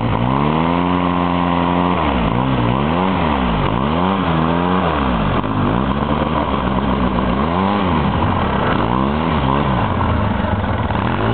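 Quad (ATV) engine revved up and down in repeated blips, its pitch climbing and falling several times, as the quad churns through deep snow.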